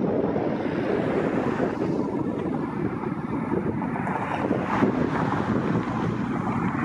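Wind buffeting the microphone: a steady, rough rushing noise.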